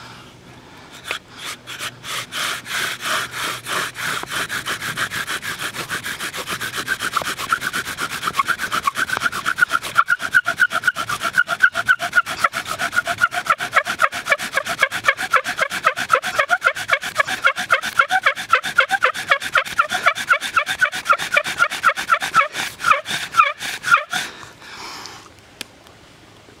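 Bow drill fire-making: a wooden spindle is driven back and forth in a hearth board that was soaked in water. Each bow stroke gives a rhythmic squeaking rub. The strokes grow louder and faster partway through, as the set smokes on its way to an ember, then stop suddenly about two seconds before the end.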